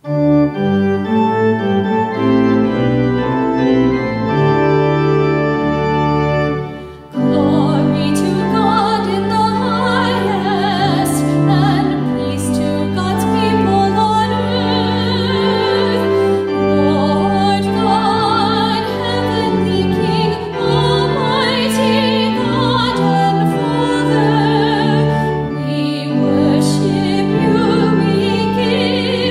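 Church organ playing held chords. After a short break about seven seconds in, it starts again and a singing voice joins over the organ accompaniment.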